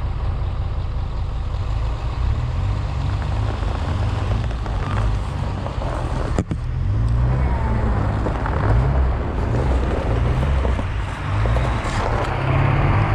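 Jeep TJ's engine running hard under load and revving up and down while pulling a stuck Ford F-350 out of snow on a recovery strap. A single sharp knock about six seconds in.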